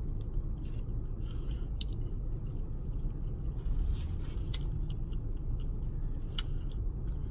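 A woman chewing a mouthful of burger, with a few sharp mouth clicks, over the steady low rumble inside a car.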